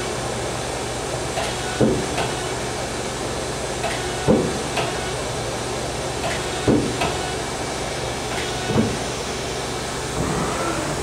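The 12-station VDI tool turret of a Hyundai-Kia SKT-21LMS CNC turning center indexing from station to station. Each index ends in a clunk, four times about every two and a half seconds, with lighter clicks between them, over the steady hum of the running machine.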